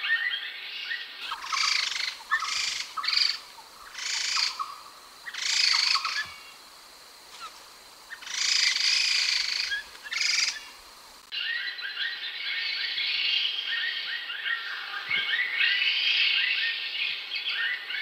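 Khướu đầu xám laughingthrush singing: loud bursts of rich, chattering phrases separated by short pauses, then a continuous run of overlapping chatter from about two-thirds of the way in.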